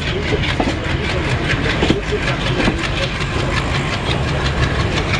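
WDM2A diesel locomotive's 16-cylinder ALCO engine chugging as the train pulls out, a loud steady run with a fast, even beat.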